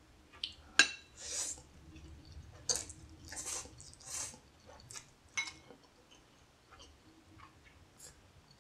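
Close-up slurping of ramen noodles in several hissy pulls, with a few sharp clicks of chopsticks against dishes, then quieter chewing near the end.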